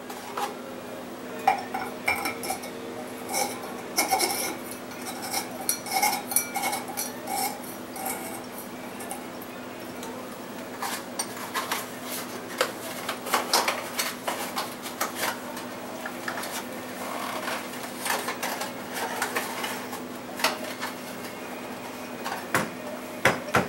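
Irregular clinks, clicks and rattles of small hard objects being handled, over a steady low hum.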